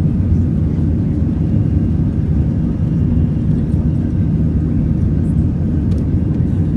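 Cabin noise of an Airbus A319-114 climbing out after takeoff, heard from a seat over the wing: the steady, low-heavy drone of its CFM56 engines and the airflow past the fuselage.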